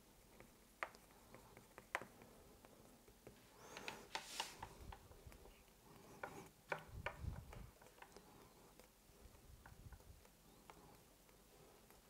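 Faint handling noises: scattered small clicks and taps, a brief rub about four seconds in and a dull knock about seven seconds in, from hands and a modelling tool working around a sugar-paste ship cake on its board.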